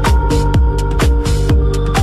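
Electronic dance music: a steady, punchy kick drum about three beats a second, with hi-hats and held synth notes.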